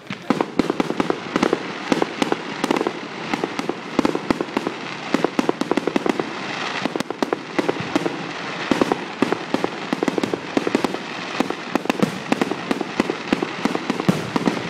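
Fireworks display: a dense, rapid run of bangs and crackles from bursting aerial shells, several reports a second, starting abruptly.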